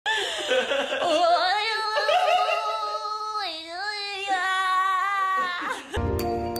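A woman singing in a high voice, long held notes that waver and slide up and down in pitch. Near the end it cuts to music with bell-like notes.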